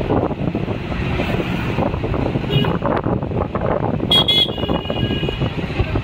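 Street traffic noise with vehicle horns honking: a short honk about two and a half seconds in, then a louder, longer horn about four seconds in.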